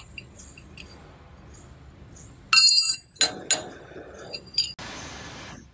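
Metal clinking and ringing clanks as an iron levelling pad is set and nudged into place under a laminating machine's foot with a metal bar. The loudest clank, with a ringing tail, comes about two and a half seconds in and is followed by several smaller clinks. A rough scrape lasting about a second comes near the end.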